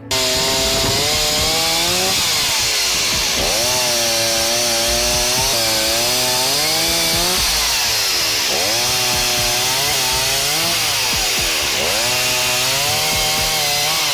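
Chainsaw cutting wood, running steadily at high revs. Its engine note drops sharply and climbs back several times as it bites into the cut.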